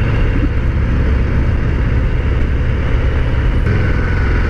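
Harley-Davidson FXDR 114's Milwaukee-Eight V-twin running steadily as the motorcycle cruises along, with wind noise over the handlebar-mounted camera.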